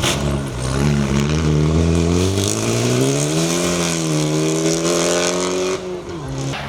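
Fiat Egea 1.4 T-Jet rally car's turbocharged four-cylinder engine under hard acceleration: a sharp crack at the start, then the revs climb and hold, and drop away as the throttle is lifted near the end.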